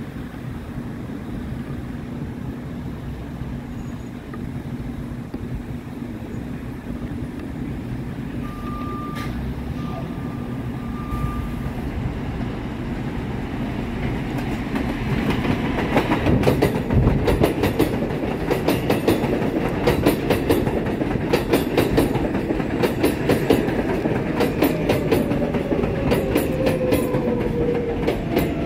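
R188 subway train on the elevated Flushing Line approaching and running past close by. Its rumble builds up, then from about halfway through comes a rapid clickety-clack of wheels over the rail joints, with a falling whine near the end.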